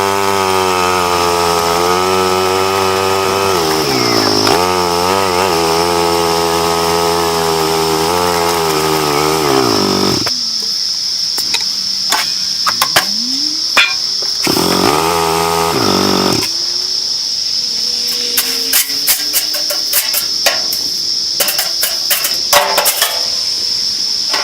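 Four-wheeler (ATV) engine running, its pitch rising and falling as it drives. It cuts out about ten seconds in and comes back briefly around fifteen seconds. A steady high-pitched cicada chorus runs throughout, and scattered clicks and knocks follow in the later part.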